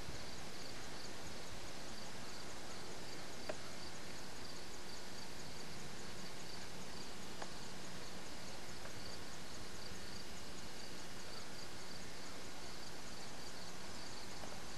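Steady outdoor background of insects chirping in a fast, even pulse, with a few faint clicks.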